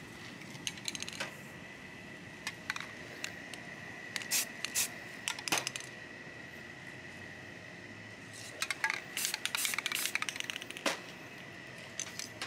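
Aerosol spray paint cans being handled and sprayed: short hisses of spray and scattered sharp clicks and rattles, with a quick run of rapid clicks about two-thirds of the way through.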